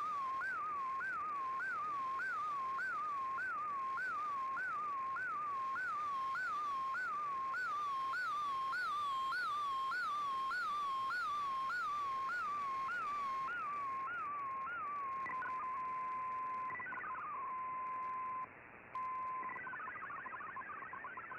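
Shortwave radio audio of a digital MFSK picture transmission being decoded. A single tone sweeps up and falls back about twice a second as the image lines are sent, then holds steady when the picture ends. Near the end the warbling MFSK data tones of the text resume.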